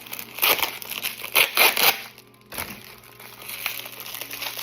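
Plastic bubble wrap being handled and pulled off, crinkling and rustling in bursts, loudest in the first two seconds and quieter after a short lull.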